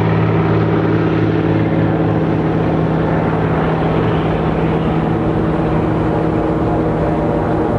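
1954 de Havilland Canada DHC-2 Beaver floatplane's Pratt & Whitney R-985 radial engine and propeller at full takeoff power as it runs across the water on its floats and lifts off. A loud, steady drone that fades slightly in the second half as the plane moves away.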